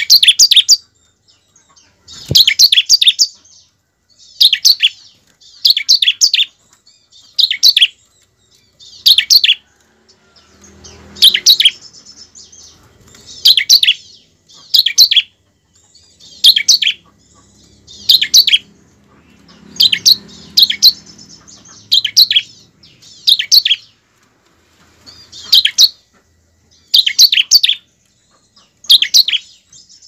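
Bar-winged prinia (ciblek) singing: short phrases of rapid, sharp, high notes, repeated about every one and a half to two seconds.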